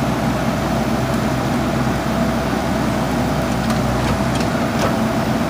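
Diesel engine of a JCB backhoe loader running steadily, with a few faint ticks partway through.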